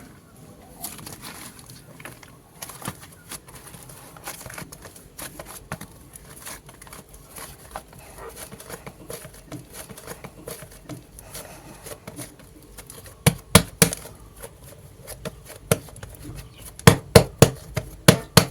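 Clay being worked by hand: a steady patter of small crackling, sticky clicks, then three sharp slaps or taps about two-thirds of the way in and a quick run of about six more near the end.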